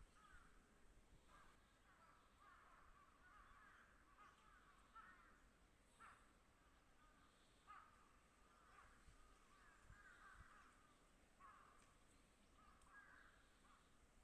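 Faint harsh, raspy bird calls repeated every second or so.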